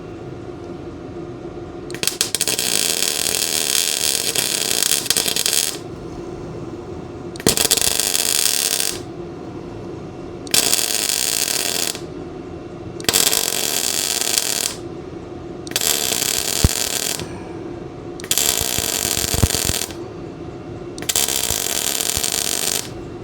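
Small MIG welder arc crackling in seven short bursts of stitch welding: a longer bead of about four seconds, then six of about a second and a half each with brief pauses between them.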